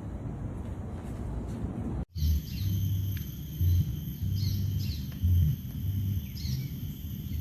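A low, steady rumble, cut off sharply about two seconds in. After the cut, background music with short bass notes plays under bird chirps and a steady high-pitched ringing.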